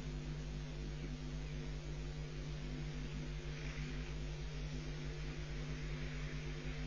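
Steady electrical mains hum with a buzz and an even hiss, unchanging throughout; no stork or chick calls stand out.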